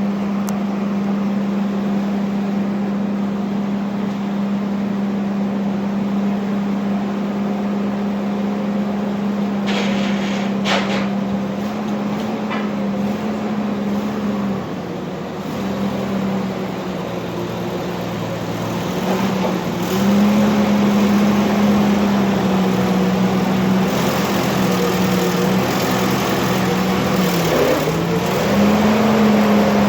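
A steady mechanical hum at one pitch that sags briefly a few times, with a couple of short clicks about ten seconds in.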